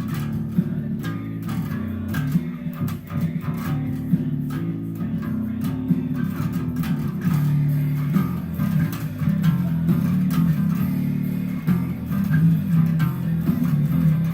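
Bass guitar playing a continuous bass line of changing low notes, with the rest of the song's tracks playing quietly underneath.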